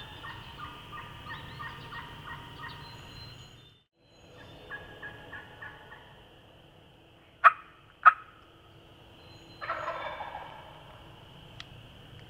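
Wild turkeys calling: a run of evenly spaced yelping notes, a shorter run a second later, and a gobbler's rattling gobble near the end. Two sharp clicks come just before the gobble and are the loudest sounds, over a steady high-pitched background hum.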